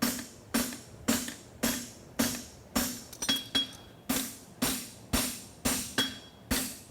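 Forging hammer striking a heated steel horseshoe bar on an anvil in a steady rhythm, about two blows a second, each with a short ring, as the bar is worked into a horseshoe.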